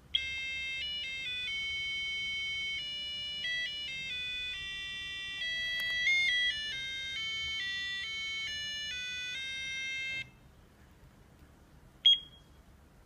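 LED desk alarm clock playing its electronic alarm melody, a tune of stepped beeping notes that stops abruptly about ten seconds in. A single short beep follows about two seconds later.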